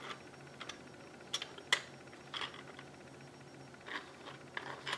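A handful of separate sharp light clicks and taps from the plastic parts of a 3D-printed model transmission being handled and adjusted, the sharpest two close together a little before the middle.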